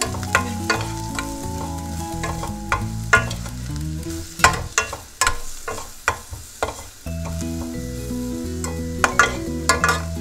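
A metal spoon stirs and scrapes onions, spices and curry leaves around a stainless steel pan, with sharp scrapes and clinks against the metal several times a second. The food sizzles in hot oil underneath.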